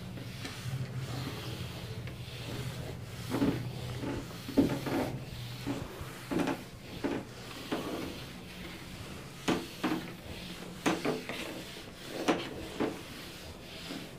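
Handheld duster rubbing across a whiteboard, erasing marker writing in a run of short, irregular wiping strokes that start about three seconds in.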